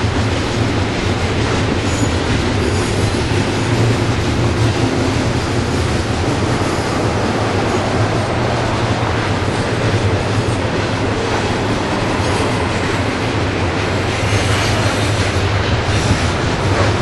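Norfolk Southern double-stack intermodal train's well cars passing at speed: a steady, loud roar of steel wheels on rail.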